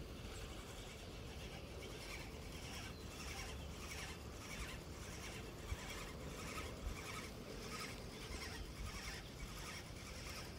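Faint animal calls, short chirps repeating about two to three times a second, over a low rumble of wind. Two small knocks come near the middle.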